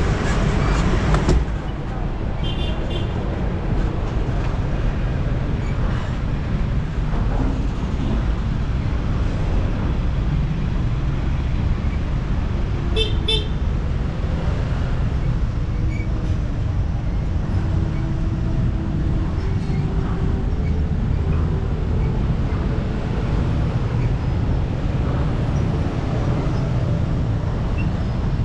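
Street traffic heard from a bicycle: a steady low rumble of engines and road noise, with vehicle horns honking. There is a short toot about two and a half seconds in, and two quick toots about thirteen seconds in.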